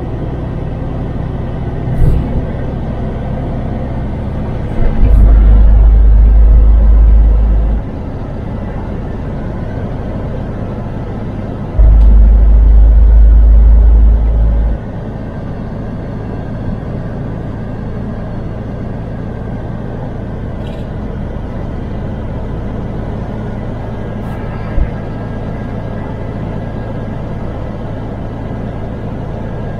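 Steady diesel engine and road noise from a MAN TGX truck on the move, heard from the cab. A loud deep rumble comes in twice, each time for about three seconds: about five seconds in and about twelve seconds in.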